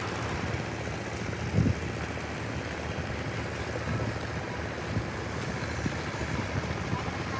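Steady low hum of a moored search-and-rescue ship's machinery running, under a noisy wash, with a few low thumps, the loudest about one and a half seconds in.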